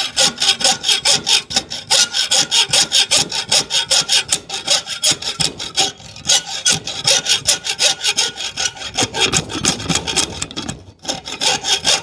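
Hacksaw cutting through a metal L bracket in fast, even back-and-forth strokes, about five a second, with a short pause near the end before a few more strokes.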